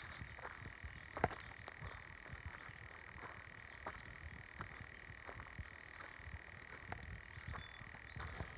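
Footsteps snapping and crunching on twigs and dry leaves of a wooded slope, irregular clicks with a louder snap about a second in, over a steady high-pitched chorus.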